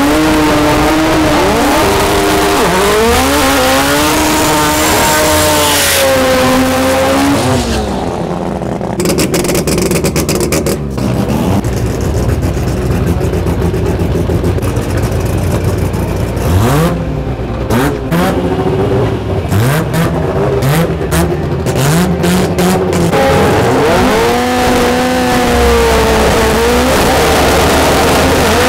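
Honda-powered import drag car engine revving up and down repeatedly. Through the middle the revs sit lower, with short blips and sharp crackles.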